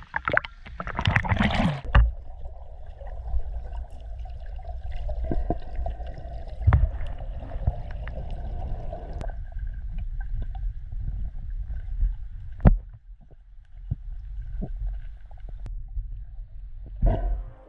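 Water sloshing and splashing around a swimmer, muffled, over a steady low rumble, with a few sharp knocks.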